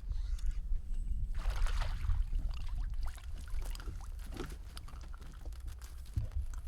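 Water splashing and dripping at the side of a boat as a hooked lake trout is brought in, loudest about a second and a half in and followed by scattered drips and clicks, over a low steady rumble.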